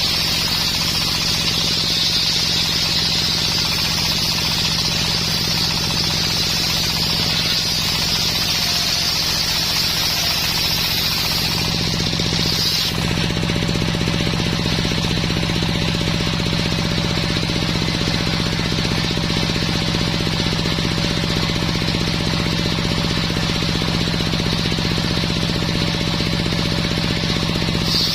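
Homemade circular sawmill running steadily, its blade cutting through dense coconut-palm wood with a high, hissing whine over the machine's hum. About halfway through the cutting sound stops abruptly and only the machine's steady hum goes on. The cutting sound returns right at the end.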